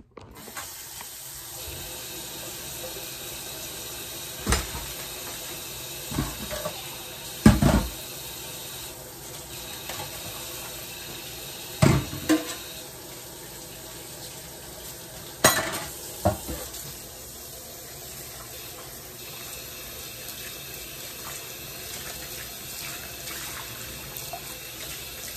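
Kitchen tap running steadily into a stainless steel sink as dishes are rinsed by hand, with a handful of sharp clanks of dishes knocking against the sink and each other.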